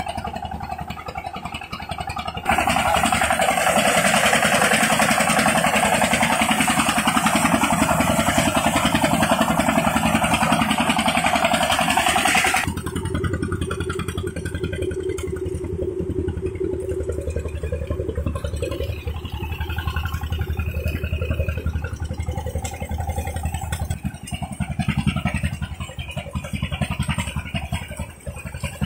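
Engine-driven rice threshing machine running steadily. A few seconds in it turns much louder and harsher for about ten seconds, then drops back to a lower, steady hum.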